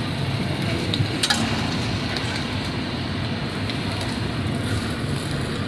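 Steady sizzle and hiss from a flat steel griddle with burger buns toasting on it, with a few light clicks of a knife and spoon against metal.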